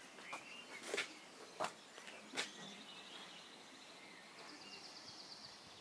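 Quiet outdoor ambience with faint bird chirps and a high, steady insect-like trill in the second half, and three short light taps from a ballpoint pen and cardboard being handled.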